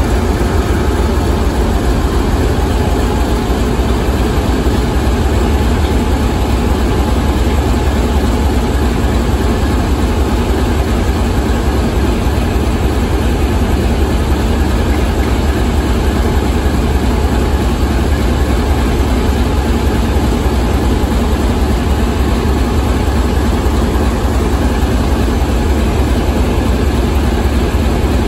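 16V280ZJA V16 locomotive diesel engine idling, a steady, deep sound that does not change.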